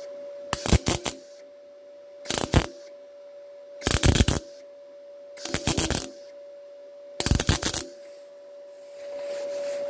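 MIG welding arc crackling in five short dabs, each about half a second, roughly one every second and a half, laying tack-like blobs of weld to fill a hole burnt through thin steel sheet. A steady hum runs underneath.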